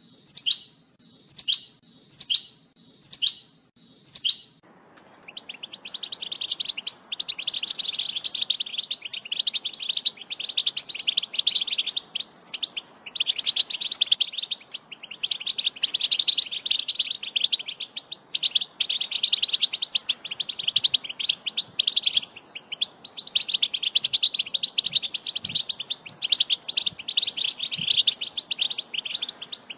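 European goldfinch song: five separate falling call notes, then from about four seconds in a long, fast, high-pitched twittering song with a few brief breaks.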